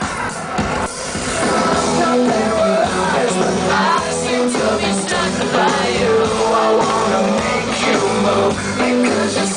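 Loud rock song with a singer and full band.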